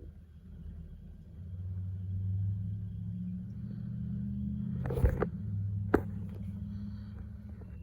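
An engine runs with a low drone that grows louder about a second and a half in. Near the five-second mark there is a short noisy burst, with two sharp knocks a second apart.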